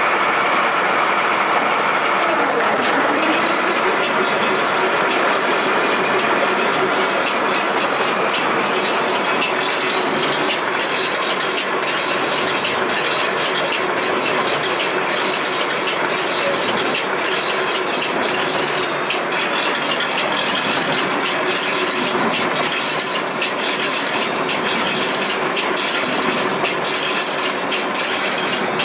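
Case IH 8575 large square baler running, its gears and mechanisms clattering steadily with many sharp clicks and rattles.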